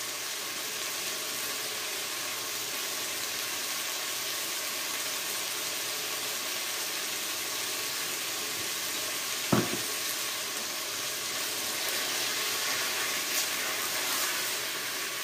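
Diced sweet potato steadily sizzling as it fries in a pan, with a single sharp knock about two-thirds of the way through. Near the end a wooden spatula stirs through the pan.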